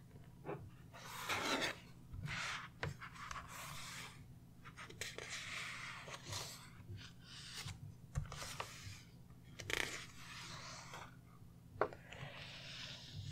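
A hardcover picture book being opened and its pages turned by hand: stiff paper and the cover rustling and rubbing close to the microphone, with several soft taps and ticks of the book against the wooden table.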